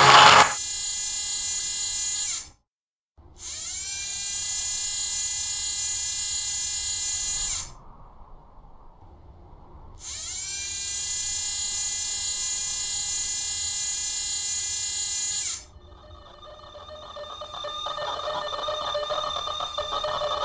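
A high electric motor whine, like a small servo spinning up: it rises in pitch at its start, holds steady for a few seconds and cuts off abruptly, three times over. A quieter hum swells in the last few seconds.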